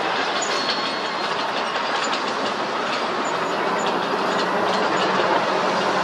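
Wheel loaders and a crawler bulldozer working dirt and gravel: a steady diesel engine hum under a dense, even clatter with scattered metallic clicks.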